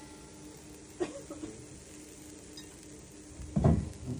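A metal spoon clinking on a ceramic plate as diced pumpkin is spooned onto it: a sharp clink about a second in, then a heavier knock and clatter near the end.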